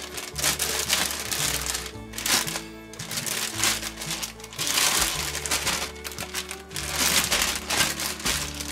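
Thin plastic food bag crinkling in surges as it is handled and a raw chicken thigh is put into it, over background music with held notes.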